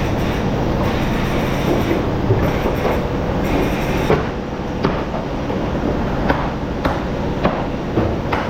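Factory machinery running steadily with a low hum and a dense rattle, and sharp knocks or clanks at irregular intervals of about a second.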